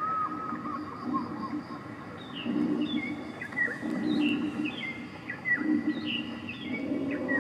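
Small birds chirping and twittering in many short, quick calls, over a low murmur that comes and goes.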